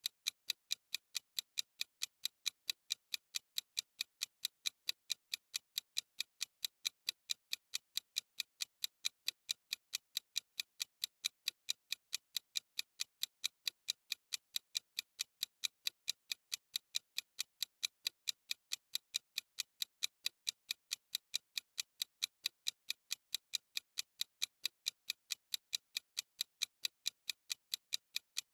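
Clock-ticking sound effect of a countdown timer: an even, unbroken run of crisp, high clicks, several a second.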